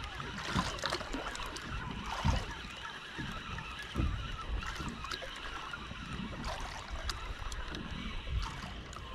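Water lapping against the hull of a small boat, with uneven low thumps and a few light clicks.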